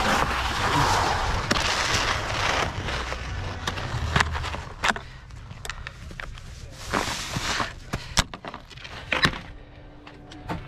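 Ski jumping skis sliding over packed snow in a steady hiss that fades over the first four seconds as the skier slows to a stop. Then a few sharp clicks and knocks and a short scrape near seven seconds, from the skis being handled.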